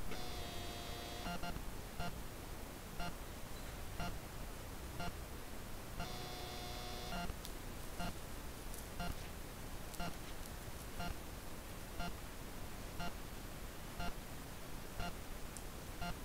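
Trail camera's own electronic noise: a faint tick about once a second throughout, with two steady beeping tones, each a little over a second long, one at the start and one about six seconds in.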